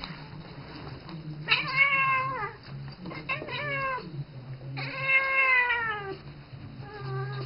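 Siamese cat meowing: two long, drawn-out meows that fall in pitch, with shorter meows between them and near the end.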